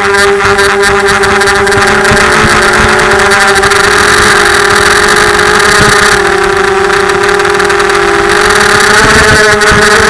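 FPV racing quadcopter's motors and propellers buzzing loudly in flight, a steady whine with wind rush; the pitch sags a little about eight seconds in and rises again as the throttle comes back up.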